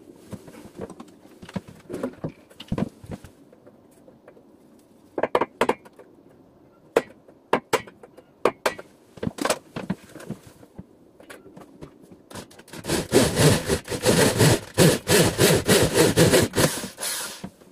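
A hammer tapping a handful of times on a solar panel's aluminium frame. Then, about thirteen seconds in, an electric drill bores into the aluminium frame for about four seconds.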